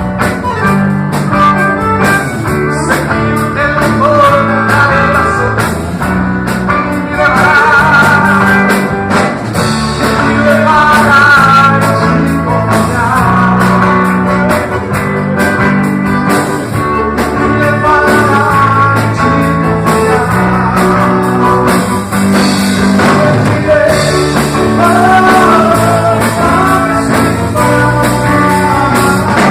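Worship-song melody played on a gaita, a free-reed instrument, over a steady backing of held bass notes.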